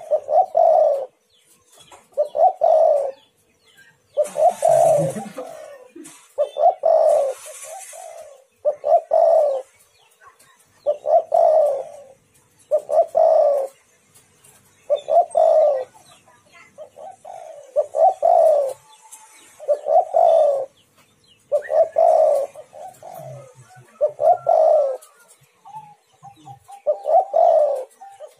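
Spotted dove cooing over and over, with a phrase about every two seconds. Twice, at about four and a half and seven seconds in, there is a short burst of hiss.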